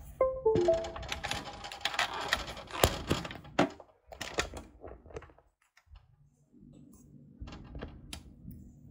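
Rapid clicking and clattering of small objects being handled, dense for about four seconds and then thinning to a few scattered clicks. After a short silence a faint low hum comes in.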